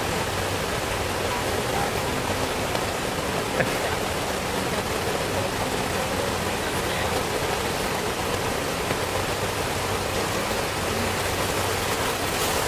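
A river in flood, swollen far beyond its banks, rushing steadily.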